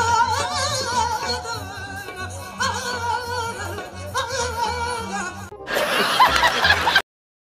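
A woman singing a high, heavily ornamented wavering vocal line over a low, steady drum beat. About five and a half seconds in it gives way to a burst of loud laughter, which cuts off suddenly into silence.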